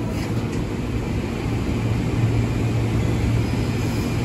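Electric commuter train, an ex-JR 203 series KRL unit, running slowly along the platform: a steady low hum from its motors with rumbling wheel noise.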